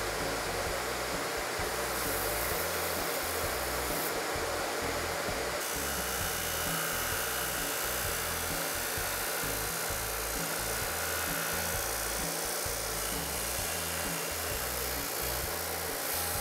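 Table saw running with a sanding disc mounted in place of the blade, grinding down the edge of a shelf panel held against it; a steady, even machine noise.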